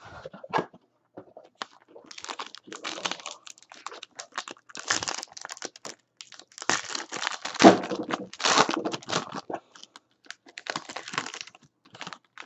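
A foil-wrapped trading card pack and its box being torn open and handled by hand: irregular crinkling and tearing of the wrapper, in clusters of crackles.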